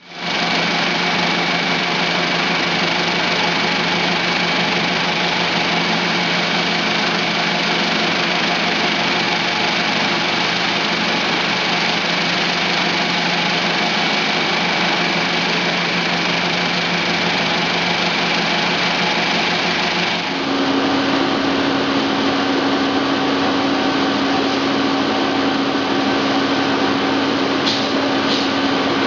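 Vibratory deburring machine running, with springs churning in finishing media: a loud, steady hiss and rattle with a thin high whine. About twenty seconds in it changes abruptly to a different steady machine noise with a strong low hum from an ultrasonic vapour degreasing plant running.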